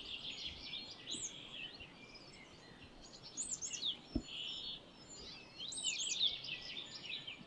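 Several songbirds chirping and singing at once: a faint, overlapping mix of short high calls, busiest a few seconds in and again near the end.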